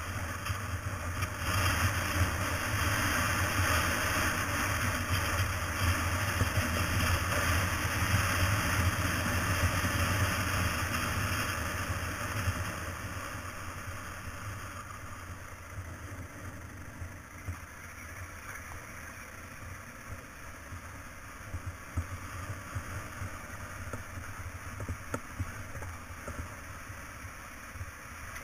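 Motorcycle engine running with wind and tyre noise while riding on a gravel road; louder for the first dozen seconds, then easing off to a lower, steadier level.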